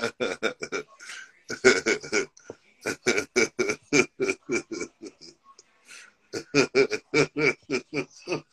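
A person's voice making rapid, repeated non-word vocal sounds, about four a second, breaking off briefly about five seconds in and then starting again.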